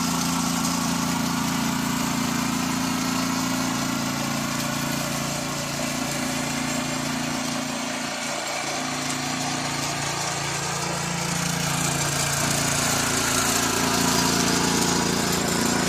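Small petrol engine of a KisanKraft KK-IC-200P inter cultivator (mini power tiller) running steadily under load as its rotary tines churn through soil. The engine note drops and wavers for a few seconds midway, then steadies and gets slightly louder near the end.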